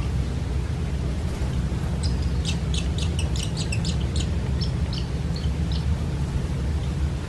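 Eight-day-old barn swallow nestlings chirping in the nest. A quick run of short, high chirps starts about two seconds in and lasts some four seconds, over a steady low rumble.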